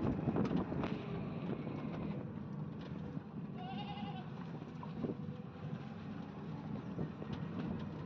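Auto-rickshaw on the move, heard from inside its passenger cabin: a steady engine and road rumble with loose rattling and small knocks, and a short wavering tone a little after halfway through.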